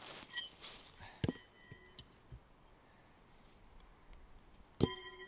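A thrown knife hits the wooden log target near the end with a sharp metallic strike, and the blade keeps ringing for nearly a second. A duller knock comes about a second in.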